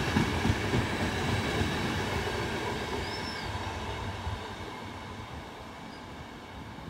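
Frecciabianca passenger coaches rolling away on the track, their wheels rumbling and clattering over the rails and fading steadily as the train pulls out and recedes.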